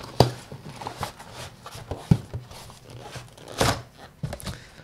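Cardboard packaging being handled: an inner cardboard box slid out of a paperboard sleeve, with a few sharp taps and knocks and a longer scrape of cardboard on cardboard about three and a half seconds in.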